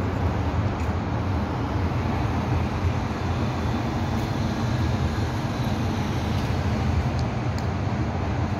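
Steady low rumble of urban outdoor background noise, even throughout with no distinct events.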